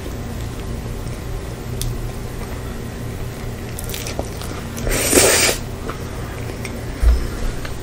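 Close-miked bites and wet, squishy chewing of a burger bun and lettuce over a steady low hum, with a louder crunchy burst about five seconds in and a low thump near the end.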